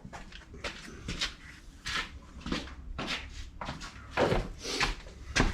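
Hands handling an extension-cord plug and its wires: a string of small, irregular clicks, taps and rustles of plastic and cord.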